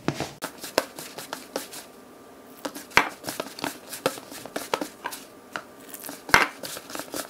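Hand kneading wheat flour and warm water into dough in a plastic bowl: irregular crackly rubbing and squishing with light knocks against the bowl, two louder ones about three seconds in and near the end.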